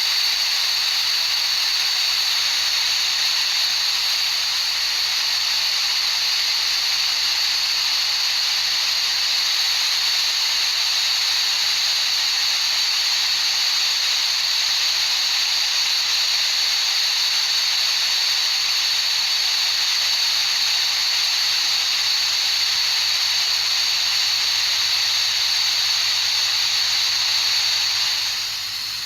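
Steady high-pitched hiss of tinnitus-masking noise, strongest in a high band with almost no bass, dipping slightly just before the end.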